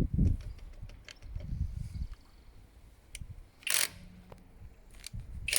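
A cordless impact wrench's run dies away just after the start, followed by scattered clicks and clatter of the wrench and socket being handled, with two short sharp rasps, one about halfway through and one at the end.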